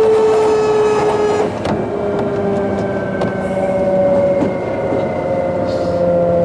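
Hitachi GTO-VVVF inverter and traction motor of a Sotetsu New 7000 series motor car, heard from inside the car while running, with rail and running noise under it. Its tone glides slowly downward. About a second and a half in, the sound changes to a different set of tones that keep falling slowly. This car's motor sound is known to differ subtly from the rest of its class.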